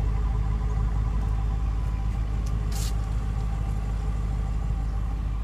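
BMW M6 Gran Coupe's V8 idling: a steady low rumble with a faint even hum, and a brief rustle a little before the middle.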